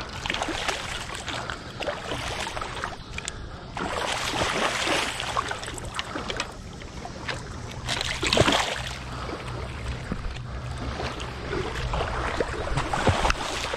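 A large hooked catfish thrashing and splashing in shallow river water as it is pulled in on the line, in uneven surges with the biggest splash about eight and a half seconds in.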